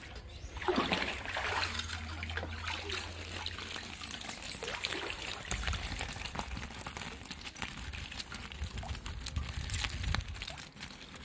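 Water trickling and splashing off a seine net lifted from a shallow fish tank, with a louder rush about a second in, and small wet taps as the caught lambaris flip on the wet mesh.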